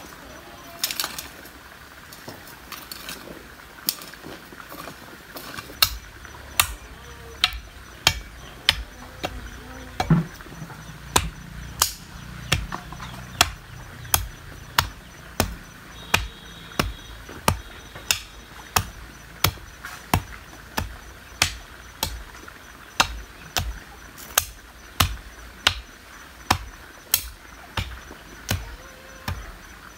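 A hoe striking clay soil in a steady rhythm, about three blows every two seconds, after a few scattered strikes at the start. Insects buzz faintly underneath.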